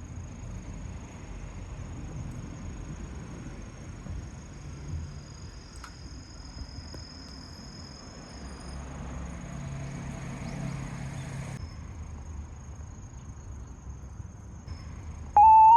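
Outdoor ambience: a steady high-pitched insect drone over a low rumble that swells for a couple of seconds in the middle. Guitar music cuts in right at the end.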